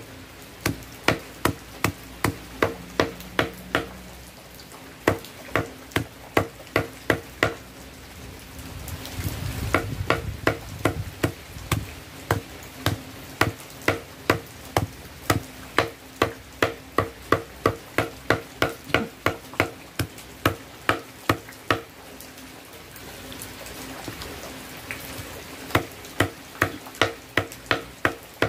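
Machete (golok) chopping soft fermented coconut husk fibre against a flat chopping block to shred it into cocopeat. Sharp, regular strikes come about three a second, in runs broken by short pauses.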